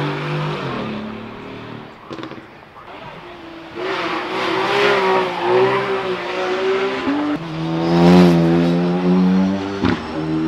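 Performance car engines at high revs accelerating up the hillclimb: one engine note fades away in the first two seconds, then a louder one builds from about four seconds in, peaking around eight seconds, with sharp drops in pitch at the gear changes.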